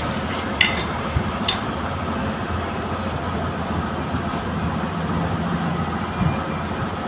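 A few light metal clinks in the first second and a half as the Bajaj M80's clutch assembly is handled and seated by hand in the open crankcase, over a steady low background hum.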